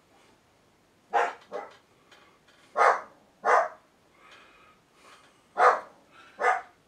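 A dog barking, about six short barks spaced roughly a second apart.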